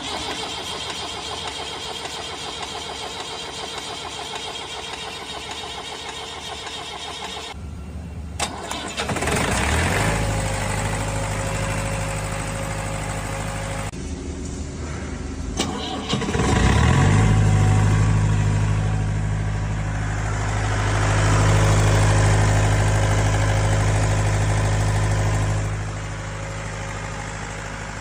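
A diesel engine cranks on the starter for about seven seconds without firing. After a click it catches and runs for a few seconds, then stops. It is cranked again, fires within a second, runs with a brief rise in revs, and shuts off near the end: a hard-starting diesel.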